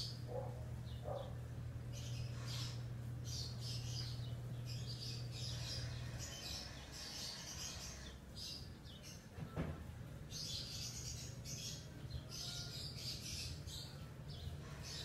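Birds chirping in the background in repeated short high bursts, over a low steady hum that stops about six seconds in. A brief falling sweep sounds just under ten seconds in.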